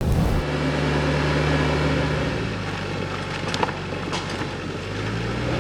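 An engine running steadily at low revs, likely the tractor's; a couple of light sharp knocks come through around the middle.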